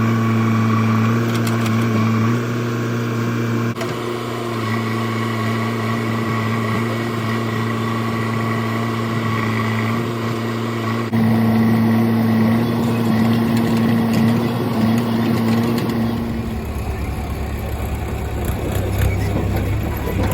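Diesel engines of a backhoe loader and a farm tractor running steadily at work. The tone shifts abruptly about 4, 11 and 16 seconds in, and after the last shift it turns lower and rougher.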